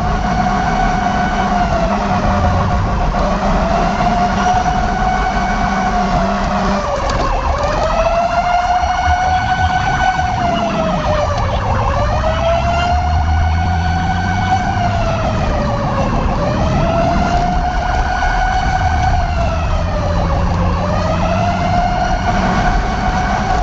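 Fire truck siren wailing in a slow rise and fall, about one cycle every four seconds, over the low rumble of an engine.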